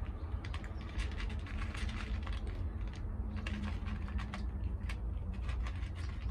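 A cat chewing dry kibble from a foil tray: quick, irregular crunching clicks, over a steady low rumble.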